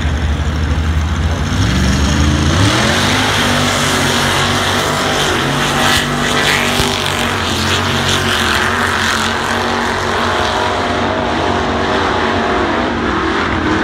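Off-road race trucks' engines revving hard at full throttle. The pitch climbs steeply about two seconds in as they launch, then holds high and steady under load as they race up the hill climb.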